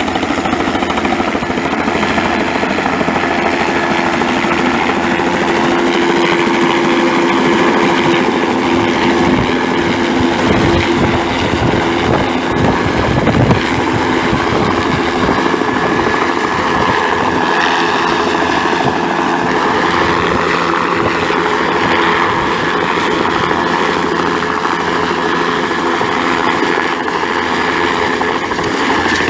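Bell 206L-4 LongRanger IV helicopter hovering close by, its rotor and turbine engine running loud and steady.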